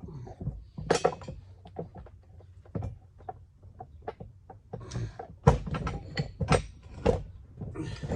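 Irregular metal clunks, clicks and knocks from the lead screw of an antique Armstrong pipe vise as it is worked and knocked to free it from the vise body. The knocks come faster and louder about halfway through.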